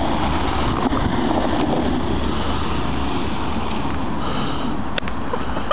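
A car driving slowly over snow while towing a person on a rope: a steady low rumble.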